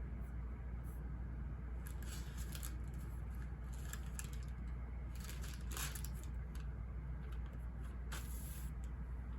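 Steady low ambient rumble, with brief light scratches and rustles of paper being handled or written on, coming irregularly every second or two.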